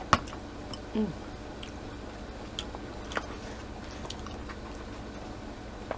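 Quiet eating sounds: a sharp click at the start, then soft chewing with scattered small clicks and smacks. A short murmur comes about a second in.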